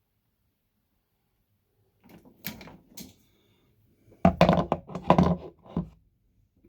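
Handling noise of electrical wiring work at a wall switch box: two sharp clicks about two and a half seconds in, then a louder clatter of knocks and plastic rattles for a couple of seconds.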